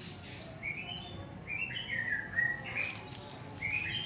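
A small bird singing: a run of short chirping notes stepping down in pitch, followed by another phrase starting near the end.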